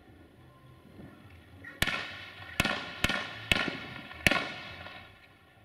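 Fireworks going off: five sharp bangs, half a second to a second apart, starting about two seconds in, each trailing off in an echo.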